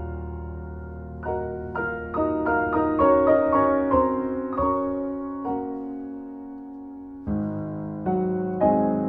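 Slow, gentle piano background music: single melody notes struck one after another, each ringing and fading, with lower notes joining about seven seconds in.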